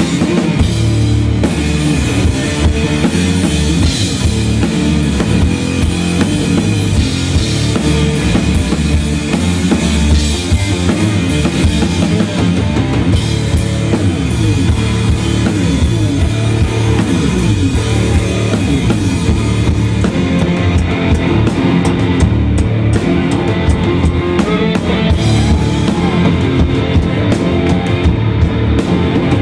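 Live rock music from a guitar-and-drums duo: a drum kit played hard, with bass drum and cymbals, under electric guitar.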